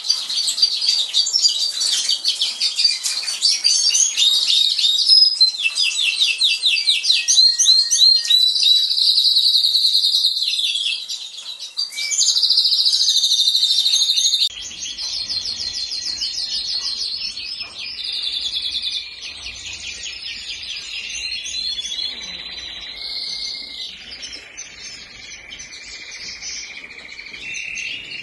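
Aviary songbirds singing: rapid twittering and trilled phrases from several birds. The recording changes abruptly about halfway, where a faint low hum comes in under the song.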